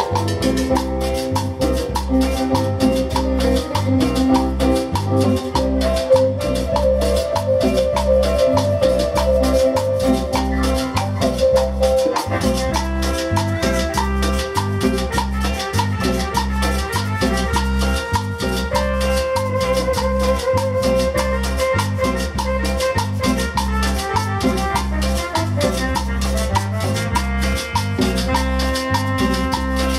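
Live band playing an upbeat Latin dance tune: electric guitar, bass, keyboard and congas over a steady, even beat.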